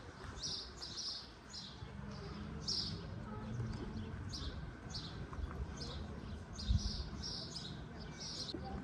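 Small birds chirping, short high chirps repeating about twice a second, over a low outdoor rumble. A dull thump about seven seconds in.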